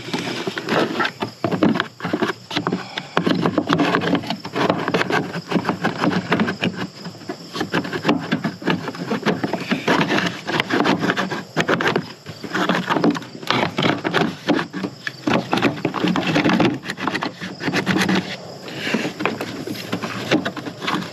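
Plastic radiator fan shroud and intake parts being handled and worked back into place in an engine bay: a dense, uneven run of clicks, knocks and rustling.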